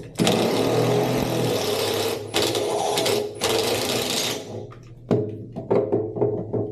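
Impact driver hammering on a stuck bathtub drain in three bursts, a long one and then two of about a second each, with several short sharp knocks after. The drain is really tight.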